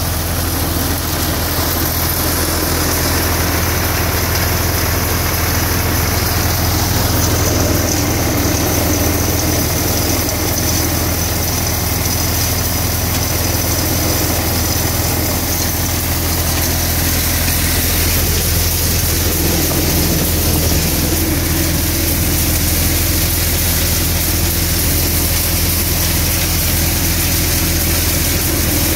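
Balwan tractor-driven thresher running at work, the tractor's diesel engine and the threshing drum making one constant low drone with a steady hiss above it.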